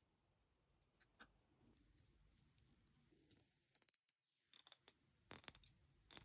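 Faint, sharp clicks and taps of small metal watch parts and tools: a couple of single clicks, then several quick clusters of clicks in the second half.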